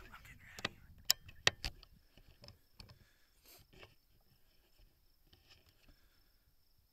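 Four sharp clicks close to the microphone within about a second, shortly after the start, followed by faint rustling.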